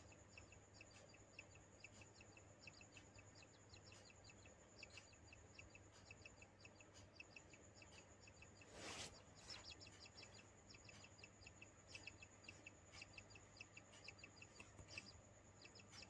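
Faint, rapid high chirping, a few short chirps a second, over a steady high whine and a low hum, with a brief rustle about nine seconds in.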